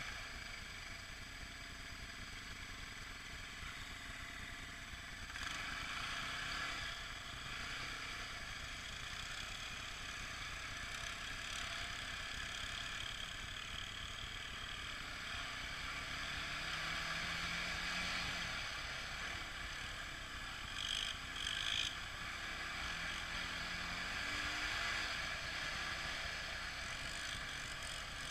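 ATV engines running while riding over sandy dirt trails, under a steady rushing noise, with the engine pitch rising twice as the throttle opens.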